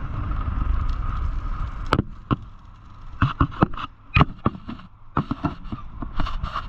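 Wind rumbling on the microphone for about two seconds. Then a run of irregular sharp clicks and knocks as hands work the metal ladder-pipe nozzle at the top of the aerial ladder.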